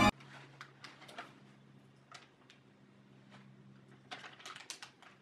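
Faint, scattered light clicks and rustles of shredded cheese being handled and sprinkled onto sauced pizza dough, over a low steady hum, with a cluster of clicks about four to five seconds in. Music cuts off right at the start.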